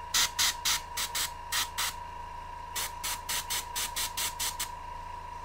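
Gravity-feed airbrush giving short, light hisses of spray, about three to five a second, in two runs with a brief pause between them, as spots of paint are dotted onto a miniature.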